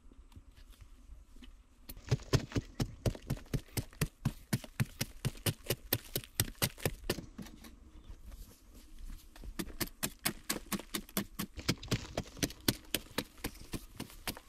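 Metal knife blade chipping and scraping into a packed clay-earth wall in quick, sharp strokes, about five a second. The strokes start about two seconds in, ease off for a moment past the middle, then pick up again.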